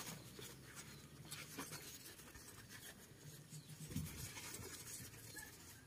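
Faint rustling and scratching of tissue paper and newspaper packing handled with plastic-gloved hands, with a slightly louder rustle about four seconds in.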